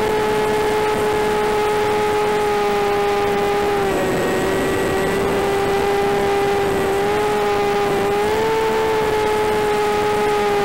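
AR600 flying wing's electric motor and propeller running at cruise throttle: a steady whine over a rush of wind hiss. The pitch sags slightly about four seconds in and lifts briefly a little past eight seconds.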